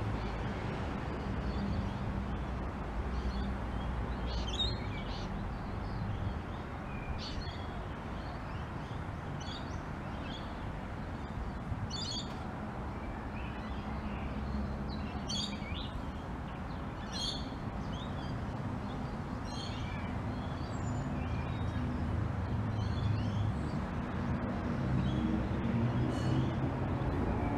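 Light rain falling steadily over a low rumble, with a bird calling in short high chirps every second or two. The rumble grows louder over the last few seconds.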